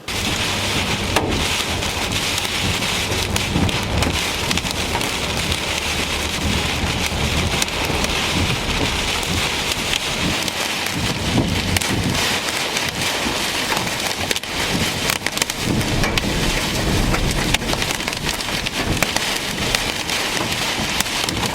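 Heavy storm rain pelting a hard surface: a dense, steady hiss dotted with many sharp individual hits.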